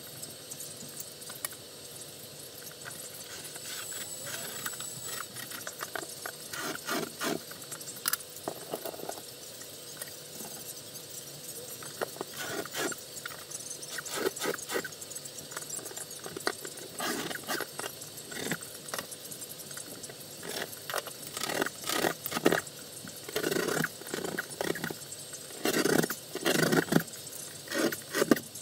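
Irregular scraping, tapping and clattering of hand work on a drywall ceiling, over a steady hiss. The clatters come more often and louder near the end.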